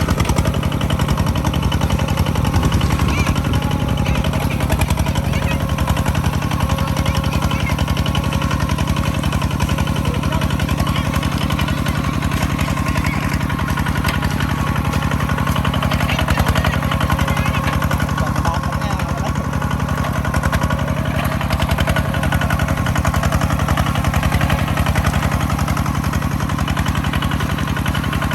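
Engine of a rice-harvesting machine running steadily at constant speed, a continuous drone with fast even firing pulses.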